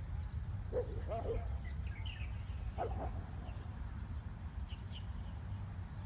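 Steady low outdoor rumble with a few faint, short animal calls, one about a second in and another about three seconds in, and scattered faint bird chirps.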